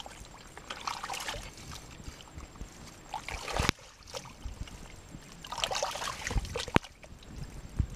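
Bare feet squelching and splashing through soft mangrove mud and shallow water, in a few separate stretches, with two sharp knocks, one about halfway in and one near the end.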